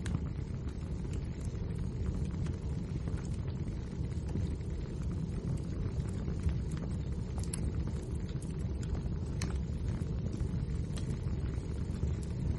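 Wood fire burning in a fireplace: a steady low rumble of the flames with small crackles and pops scattered throughout.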